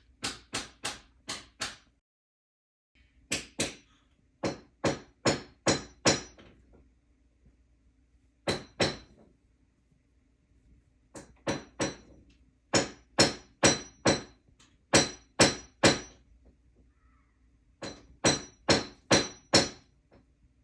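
Hammer blows in runs of several quick strikes, about three a second, with short pauses between the runs; many blows carry a slight ringing tone.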